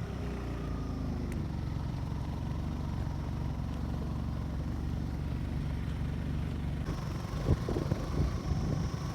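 A motor vehicle's engine running steadily with a low rumble, with a few knocks and rattles near the end.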